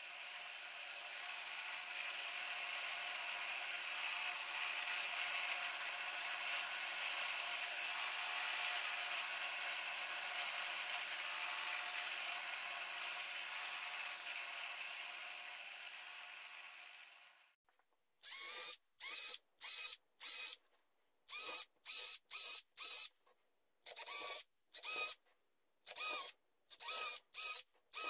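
Drill press motor running steadily while it bores holes through a wooden blank, until it cuts off about two-thirds of the way through. Then a cordless drill whirs in a quick series of short bursts, about half a second each, as it drills small holes.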